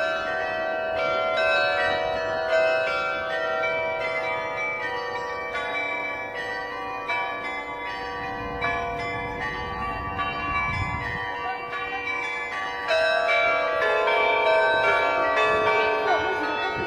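A 27-bell carillon playing a tune: bells of different pitch struck one after another, each note ringing on and overlapping the next.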